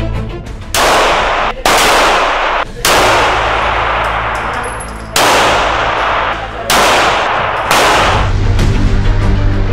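Six pistol shots fired on an indoor firing range, each a sharp crack followed by a long echo, spaced unevenly over about seven seconds.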